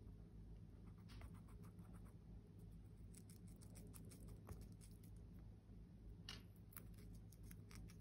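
Faint, quick crunches and clicks of a white-bellied caique's beak nibbling a fresh pea pod, over a low steady hum.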